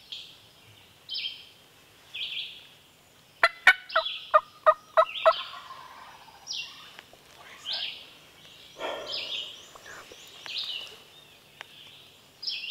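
A run of about seven loud, close turkey yelps lasting about two seconds, a few seconds in. A songbird repeats a short high phrase about once a second throughout.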